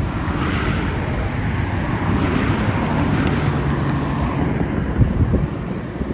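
Motor vehicle engine running with a steady rumble and wind buffeting the microphone, with two short dull knocks about five seconds in.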